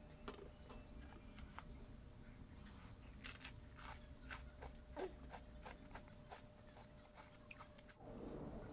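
Faint close-up eating sounds: a person chewing a mouthful of rice and curry, with scattered short clicks and mouth smacks. A low background noise rises near the end.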